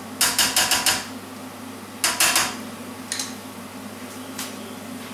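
Plastic spatula knocked against a frying pan: a quick run of about five knocks, three more about two seconds in, then a couple of single knocks, over a steady low hum.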